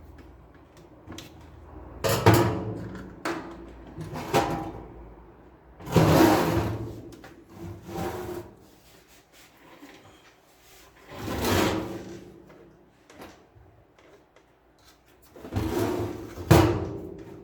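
A series of about five irregular clunks and scrapes of hard objects being moved or handled, each lasting up to about a second and a half, with quieter gaps between them.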